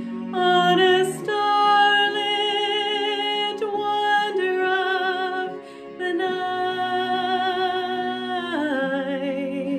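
A woman singing solo with strong vibrato over a soft instrumental accompaniment, holding long notes, with a brief pause for breath about halfway through.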